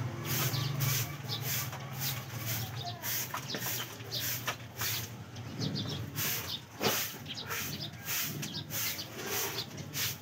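Broom sweeping: short scratchy strokes about three times a second.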